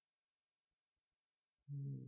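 Near silence, then near the end a short, low, steady hum from a man's voice, a held "mmm".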